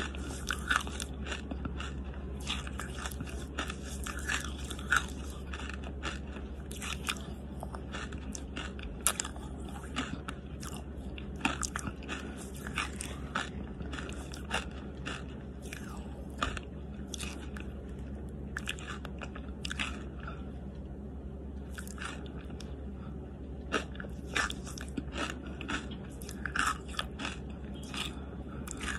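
Close-miked chewing of charcoal: irregular crisp crunches and wet mouth clicks, several a second, over a steady low hum.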